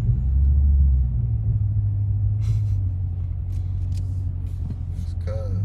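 2020 Dodge Scat Pack's 392 (6.4-litre) HEMI V8 running with a low exhaust rumble through a mid-muffler delete. It is a little louder in the first second, then settles to a steady drone.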